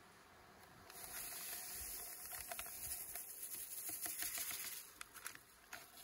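Granulated sugar poured from a paper bag into a plastic bee feeder tray: a steady hiss that starts about a second in and stops before the end, followed by a few light crackles of the paper bag.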